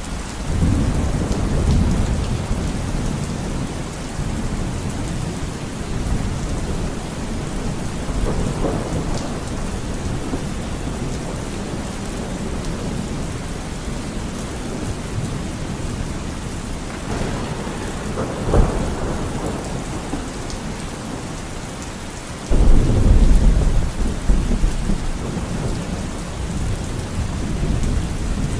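Steady heavy rain with rolling thunder. The thunder rumbles low from the start, cracks sharply a few times in the middle, and breaks into its loudest rumble about three quarters of the way through.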